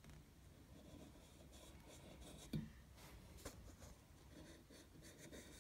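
Faint scratchy strokes of a marker pen on a copper pipe, marking the line to cut, with a soft knock about halfway through.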